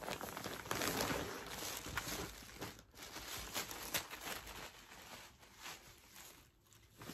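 Plastic poly bag crinkling and rustling as it is opened and a hoodie is pulled out of it, busiest in the first couple of seconds and thinning out near the end.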